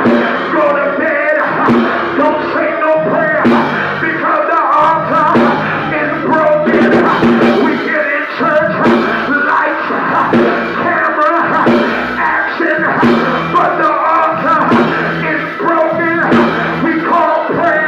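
Live church band music playing loudly, with a beat and voices singing along.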